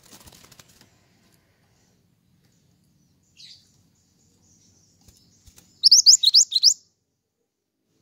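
A caged black-and-yellow songbird fluttering its wings at the start, giving one short call about three and a half seconds in, then a quick loud run of about five rising chirps near the six-second mark.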